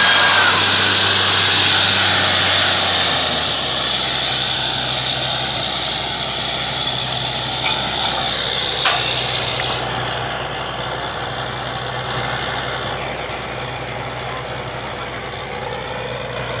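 Truck-mounted borewell drilling rig running: a steady engine drone under a loud hiss, the hiss easing off about ten seconds in.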